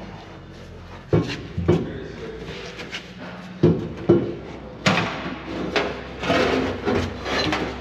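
Rusty steel fuel tank being lifted and pushed into place under a pickup's frame. It gives several hollow clunks and knocks over the first five seconds, then scrapes and rubs against the underside near the end.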